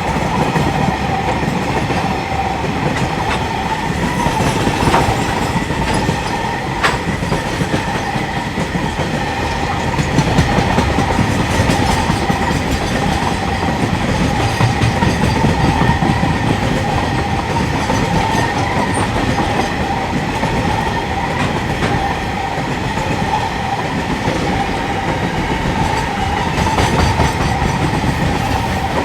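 Freight train wagons rolling past, steel wheels clattering over the rail joints in a steady rumble, with a continuous whining tone above it.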